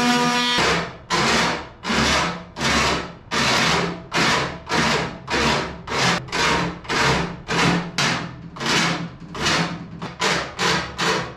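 A small electric motor's whine, likely the rotary tool, cuts off about half a second in. Then aluminum is worked by hand with a file or abrasive, cleaning up a cut edge in steady back-and-forth rasping strokes: about one and a half strokes a second, quickening to about two a second near the end.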